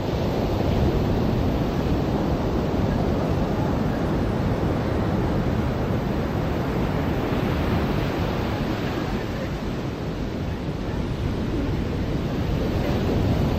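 Ocean surf breaking and washing up a sandy beach, a continuous rushing that swells and eases.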